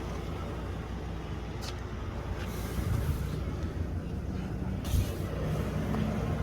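Ford F550's 6.8-litre V10 gas engine idling steadily, with two light clicks and a brief hiss partway through.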